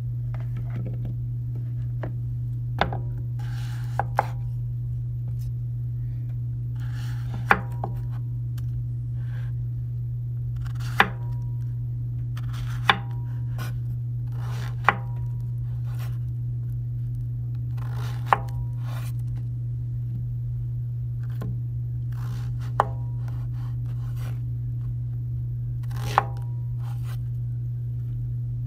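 Kitchen knife chopping a zucchini into thick rounds on a wooden cutting board: about ten sharp knocks of the blade hitting the board, spaced a few seconds apart. A steady low hum runs underneath.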